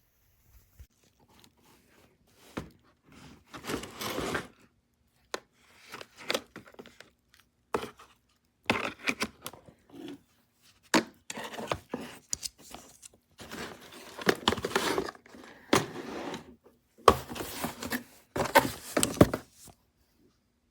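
Irregular handling noises: sharp clicks and knocks mixed with short scraping and rustling stretches as objects are moved about, busiest and loudest in the last few seconds.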